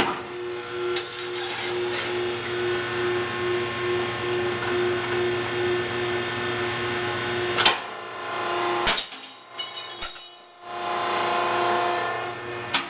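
Hydraulic ironworker switched on, its motor and pump running with a steady hum, then its shear cutting a steel bar with a sharp bang a little over halfway through. More sharp clanks follow, and the hum continues until a final click near the end.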